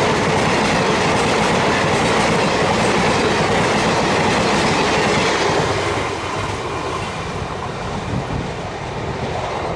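Coaches of an express passenger train running past at speed, wheels on the track making a loud, dense rush of noise. About six seconds in the noise eases and dulls as the train draws away.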